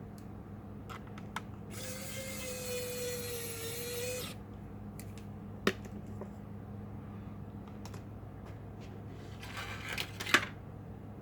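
Small electric screwdriver whirring for about two and a half seconds while working a screw on the laptop. It is followed by a single sharp click, then a shorter rustling burst that ends in a loud click near the end, over a low steady hum.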